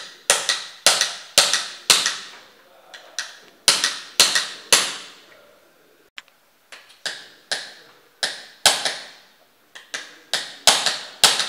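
Small hammer tapping a punch against a Walther PPQ M2 pistol to drive a part out during detail disassembly. The sharp metallic taps come a few a second in runs, each ringing briefly, with short pauses between runs.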